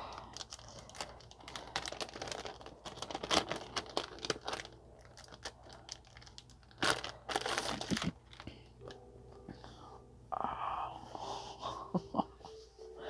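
Crinkling and rustling as a tarot deck's guidebook and its packaging are handled, with scattered sharp crackles and a couple of louder stretches of crinkling.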